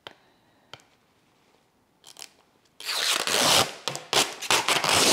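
Protective film being peeled off a plastic shelf panel: a few light clicks of the panel being handled, then, about three seconds in, a loud crackling rip in several pulls.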